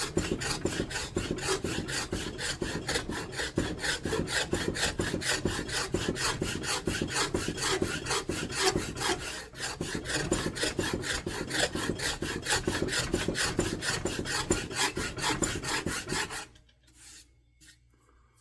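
Rapid, steady back-and-forth rasp strokes on a wooden axe handle, about four or five strokes a second, shaping flat faces of an octagonal grip; the strokes stop abruptly about two seconds before the end.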